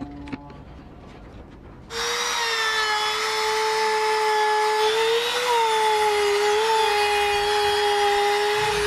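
Makita trim router starting up about two seconds in and running at a steady high whine as it routes a circular groove into a wooden board. Its pitch sags slightly a couple of times.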